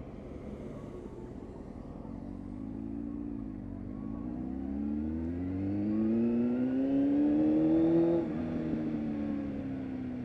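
Honda Hornet 600's inline-four engine, fitted with an aftermarket Micron exhaust, accelerating. Its pitch climbs, dips briefly at a gear change about four seconds in, and climbs again to a peak near eight seconds. It then drops off suddenly and eases down.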